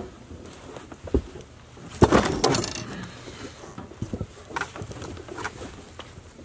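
Thumps, knocks and scuffs on a wooden truck bed as a deer carcass is shifted on it and a person steps across the boards. The loudest clatter comes about two seconds in, with a few lighter knocks after it.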